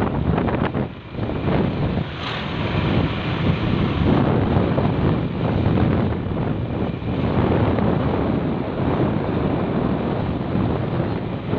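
Wind buffeting the microphone: a loud, dense rushing noise that surges and dips, with no horn tones in it.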